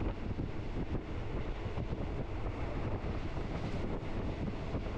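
Passenger train running along the track, heard from on board: a steady rumble and rattle with wind buffeting the microphone.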